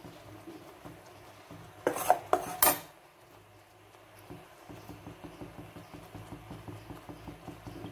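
A steel spoon stirring and scraping in a steel pan of cooking palm jaggery syrup, with three or four sharp clinks of spoon against pan about two seconds in.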